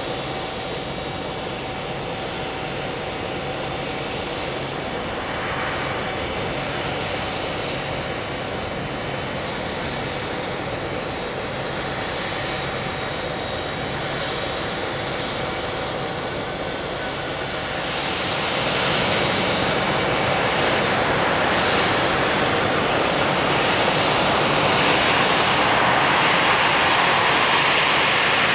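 Embraer 195's twin GE CF34-10E turbofan engines running at low thrust during rollout and taxi: a steady jet whine over a rushing hiss. It grows louder and brighter about two-thirds of the way through as the aircraft taxis closer.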